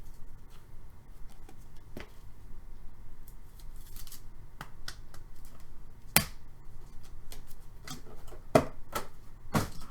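Hockey card packs, wrappers and cards being handled: scattered crinkles and short clicks, with sharper snaps about six and eight and a half seconds in.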